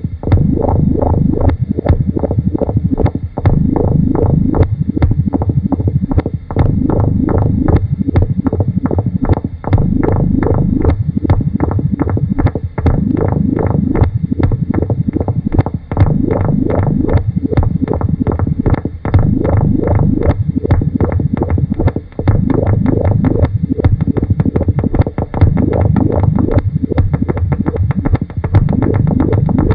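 Experimental electronic tape-music collage: a dense, low, throbbing texture of rapid pulses, looping with a short break about every three seconds.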